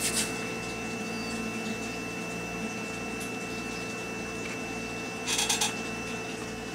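Hands handling model-building materials, a tuft of fibre smoke material and a plastic glue bottle: soft rustling at the start and a short louder rustle about five seconds in, over a steady background hum.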